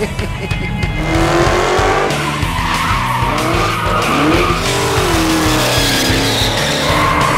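Supercharged 6.2-litre Hemi V8 of a 2015 Dodge Charger SRT Hellcat revving up and down through a burnout, its rear tyres spinning and squealing on the pavement.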